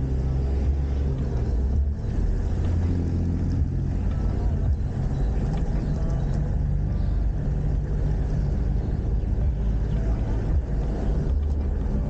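A motor vehicle's engine running steadily, a low hum whose pitch shifts slightly now and then.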